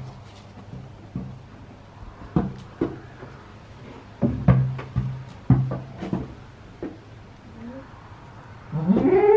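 Scattered light knocks and clicks from handling and shuffling, then near the end one goat bleat that rises and falls.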